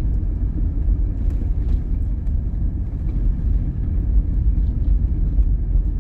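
Steady low rumble of road and tyre noise inside a Toyota Prius cabin while driving on a snow-covered road, with a few faint ticks.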